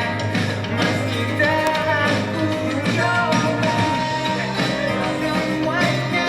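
Band music in an instrumental passage between sung lines: a held, sliding melody line over steady bass and a regular drum beat.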